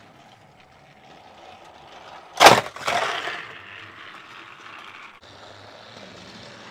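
Plastic toy train set: a sharp loud clack about two and a half seconds in, then a smaller clatter that dies away within a second, over the faint steady whirr of a battery-powered toy engine running on the plastic track.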